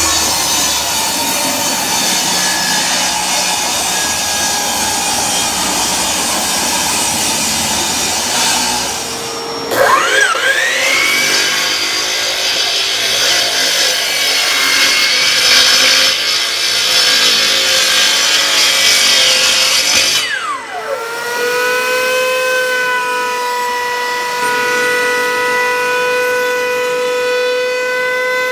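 Power woodworking tools cutting boards in three spliced stretches. First a power saw cuts for about nine seconds. Then a motor spins up with a rising whine and cuts again until about twenty seconds in, and then a steady, even-pitched whine follows: a router rounding over the board edges.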